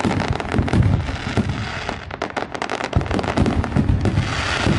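Aerial fireworks display: shells bursting overhead in rapid, overlapping bangs, with dense fast crackling from the crackling-star effects.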